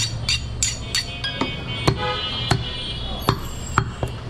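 Butcher's knife being honed with quick metal-on-metal strokes, about three a second, each ringing briefly, then a few single ringing knocks.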